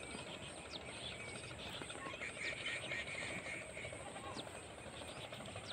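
Rural outdoor ambience in a grassy field, with a few short, high, downward chirps from small animals.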